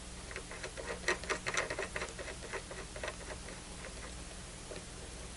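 Rapid small metallic clicks and scratches of a threaded SMA antenna connector being screwed onto the analyzer's port, a quick patter that dies away after about three seconds.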